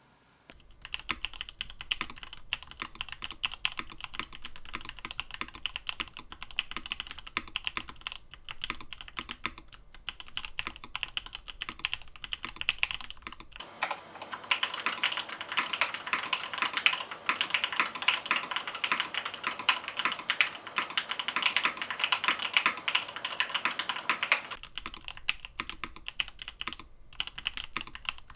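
Continuous fast typing on a Monokei KFE CE mechanical keyboard fitted with Gateron Cream Soda switches and Velocifire Creation PBT keycaps, a dense run of key clacks. About halfway through the typing turns brighter and louder for some ten seconds, then returns to the earlier, softer sound.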